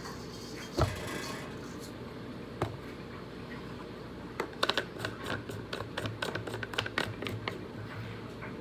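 Seasoning shaker shaken over whole chickens: a quick run of rattling clicks from about halfway through. There is one sharp knock about a second in.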